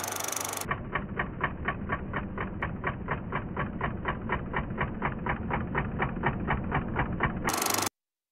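Super 8 film projector running: a steady hiss, then an even mechanical clatter of about four beats a second. It ends with a short burst of noise and then silence near the end.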